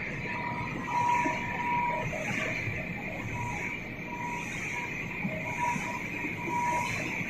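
Corn flakes production line machinery running: a steady mechanical noise with short high-pitched whines that come and go about once a second.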